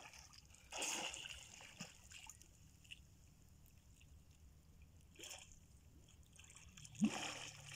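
Faint splashing and sloshing of pond water from someone swimming, in short bursts about a second in, around five seconds in, and louder just before the end.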